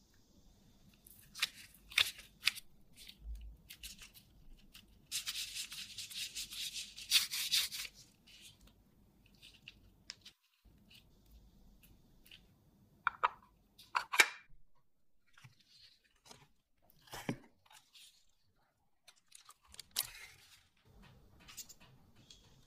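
Close-up food-preparation handling sounds from gloved hands working dough, a plastic pastry mold and foil. A dense rustle lasts about three seconds, followed by scattered clicks, taps and short tearing rustles.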